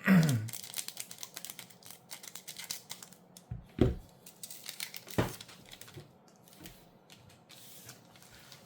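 Foil booster-pack wrapper being torn open and crinkled, a dense run of crackling in the first few seconds, with two soft thumps about four and five seconds in and lighter rustling after.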